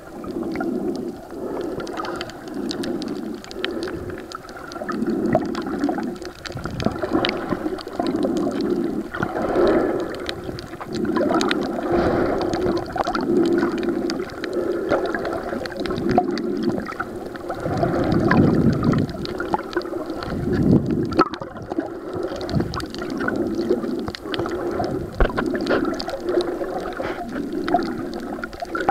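Underwater sound of water moving around a submerged waterproof compact camera: a muffled, gurgling wash that swells and fades in slow surges, with frequent small clicks and knocks.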